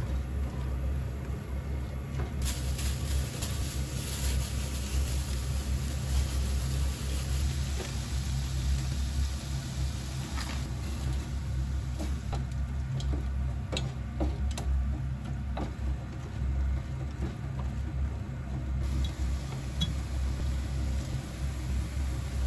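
Onions and shrimp frying in a pan, a sizzle that picks up a couple of seconds in and eases near the end, with a spatula scraping and knocking against the pan several times midway. A steady low hum runs underneath.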